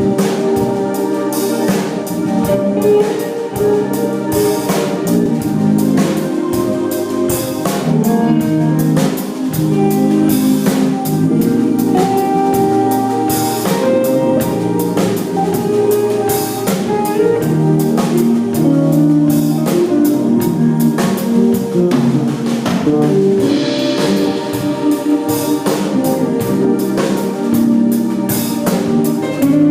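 A band playing music: a drum kit keeps a steady beat under held, changing instrument notes.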